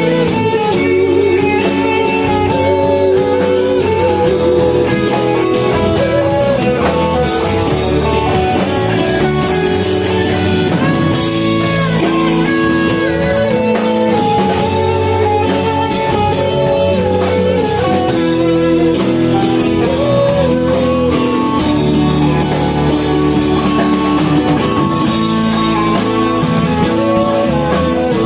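A band playing guitar-led music with a drum kit, the guitar carrying a moving melodic line over a steady accompaniment.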